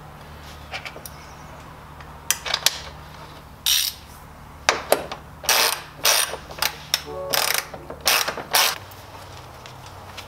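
Metal aftermarket intake pipe and its rubber coupler being worked into place by hand on a Nissan 350Z: a run of irregular scrapes and clicks, with a short squeak about seven seconds in.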